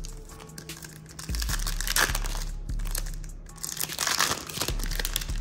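Plastic wrapper of a basketball card pack crinkling as it is handled and torn open, in two bursts about two and four seconds in.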